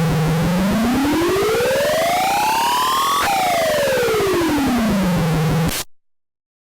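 Synthesized cartoon buzzer sound effect: a buzzing tone that glides steadily up in pitch for about three seconds, then back down, and cuts off about six seconds in.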